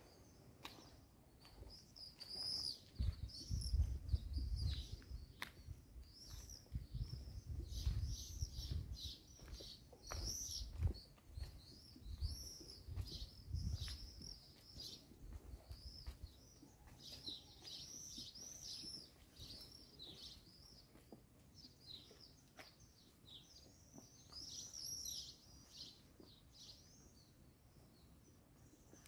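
Small birds chirping over and over, a steady stream of short high chirps. A low rumble comes and goes through the first half.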